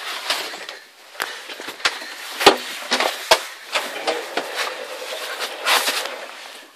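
Irregular sharp knocks and clatter of hands and objects bumping around an old Land Rover's metal body and load floor, with a short rustling burst near the end.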